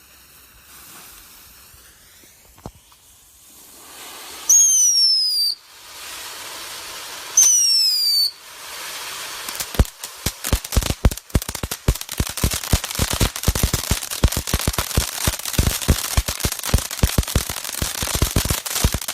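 Two firework fountains burning: a hiss of spray that grows over the first few seconds, then two loud whistles falling in pitch, about three seconds apart. From about ten seconds in, dense rapid crackling takes over.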